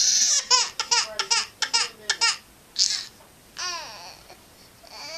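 Baby crying in a loud opening wail and a string of short broken sobs, then two longer drawn-out cries near the end: fussing to be picked up.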